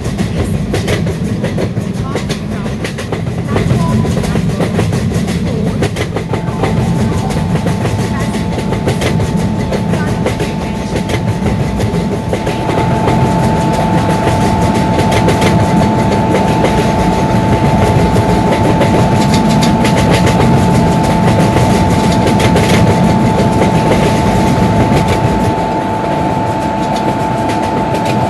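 Rajdhani Express passenger train running along the track: a steady rumble with wheel clicks over the rail joints. About six seconds in, a steady high whine joins and holds to the end.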